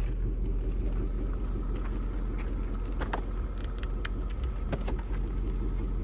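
Car running with a steady low rumble, with a few light clicks and taps over it.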